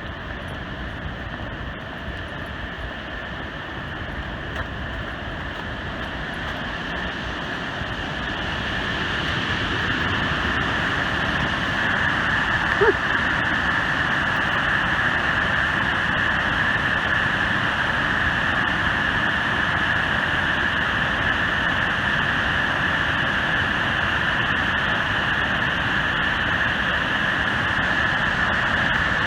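Steady rushing roar of the Great Falls of the Passaic River, growing louder over the first ten seconds and then holding even. A brief click about 13 seconds in.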